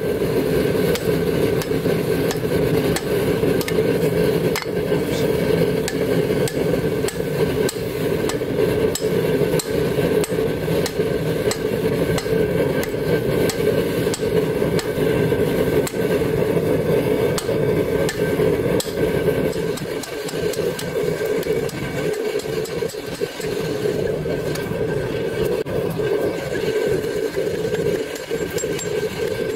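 A hand hammer strikes red-hot leaf-spring steel on a round steel post anvil in a steady run of blows as the axe head is forged. A continuous mechanical drone runs underneath.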